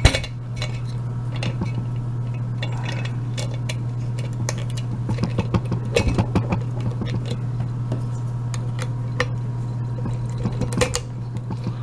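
Small metallic clicks and clinks of a euro lock cylinder and its key being handled and worked, scattered irregularly over a steady low hum.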